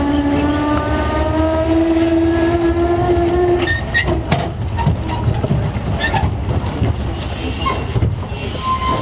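Boardwalk tram car running: a whine from its drive rises slowly in pitch as it gathers speed and fades out about three and a half seconds in, over a steady rumble. After that, the rumble and clatter of the wheels over the boardwalk planks, with scattered knocks.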